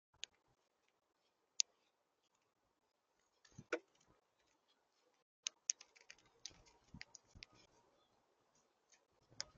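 Birds pecking and shuffling at a feeder: faint, irregular sharp clicks and taps, sparse at first and coming thicker in the second half.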